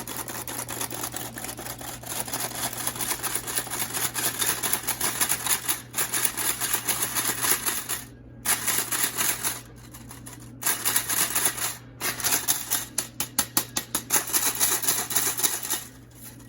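Vintage hand flour sifter being worked to sift flour, baking powder, salt and cinnamon together: fast, even clicking, stopping briefly about 8 seconds in and again about 10 seconds in.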